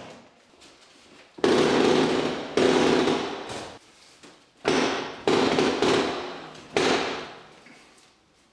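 Integrated dishwasher being shoved and shifted in its under-worktop gap: five sudden loud scrapes and bumps from its metal body, each fading within about a second.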